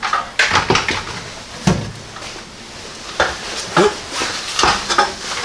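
Irregular knocks and clatter of metal tools being handled and set down, a circular saw among them laid on a pile of tools. A few short pitched squeaks or whines are mixed in.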